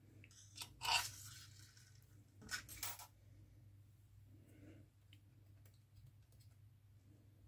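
Small metal parts or tools clicking and scraping during workbench handling, loudest about a second in and again twice around two and a half to three seconds, over a low steady hum.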